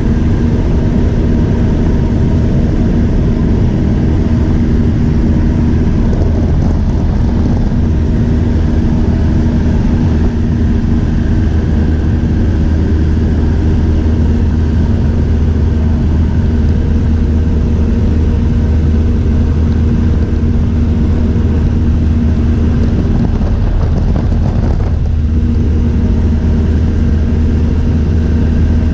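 Engine and propeller of a high-wing light aircraft droning steadily in cruising flight, heard from inside the cabin with a constant hiss of air over the airframe.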